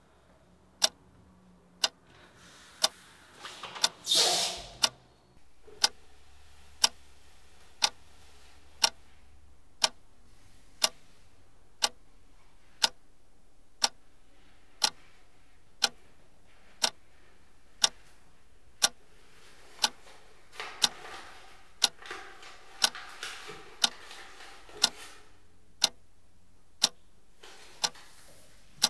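Clock ticking steadily, one sharp tick about every second. About four seconds in a short rush of noise is the loudest sound, and later a softer hazy swell rises and fades under the ticks.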